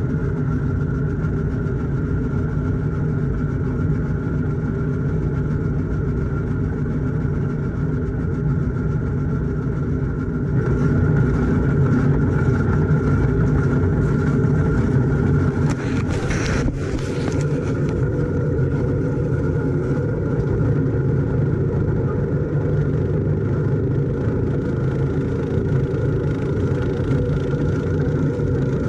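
Gehl corn chopper and a 1941 Farmall H tractor's four-cylinder engine running together as corn stalks are fed through, a steady mechanical drone. It gets a little louder and brighter about a third of the way in, with one brief swish a little past halfway.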